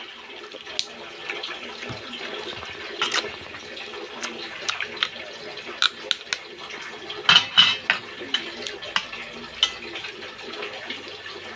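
Wet eating sounds from cooked crab: sucking, slurping and chewing on the shell pieces, with scattered sharp smacks and clicks and a louder cluster a little past the middle, over a steady hiss.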